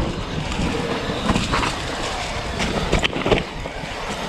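Mountain bike rolling fast down a dirt trail: steady tyre and wind noise on the microphone, with several sharp clacks and rattles as the bike goes over bumps.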